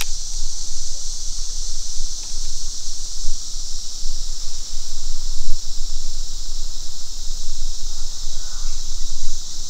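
Steady high-pitched drone of an insect chorus, unbroken and without pulses.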